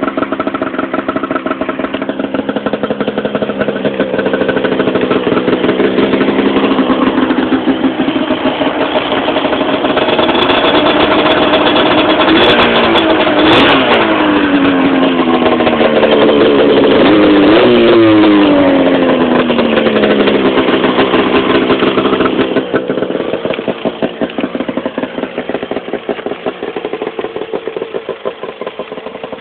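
A 2004 Arctic Cat Firecat F7 snowmobile's two-stroke twin idling loudly through an aftermarket MBRP exhaust can. Around the middle the engine pitch slides down twice as the revs fall back, and it then settles to a steady idle.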